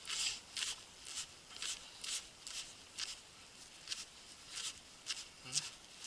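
Feathers being plucked by hand from a drake duck's carcass: short, dry ripping tugs, about two a second.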